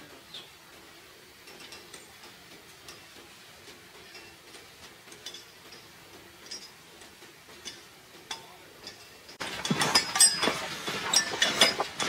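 Footsteps crunching in snow with the clicks of trekking-pole tips, faint and sparse at first. About nine seconds in they become much louder and closer.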